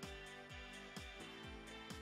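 Background music with a steady beat, a low drum hitting about twice a second under sustained tones.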